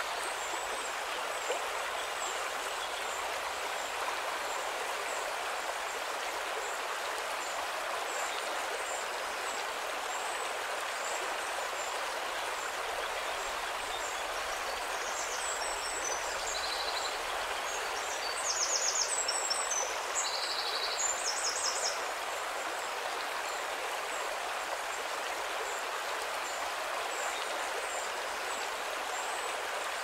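River water flowing steadily: a continuous, even rush. About halfway through, a bird sings a few short, rapid high trills, the loudest of them a little after the middle.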